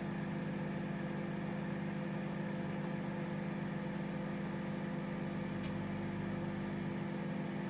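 Microwave oven running while cooking fish: a steady electrical hum with a faint click about two-thirds of the way through.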